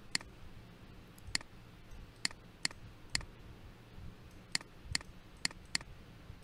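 About ten faint, sharp computer mouse and keyboard clicks at irregular intervals, some in quick pairs, as text is selected, copied and pasted between browser tabs. A faint steady low hum runs underneath.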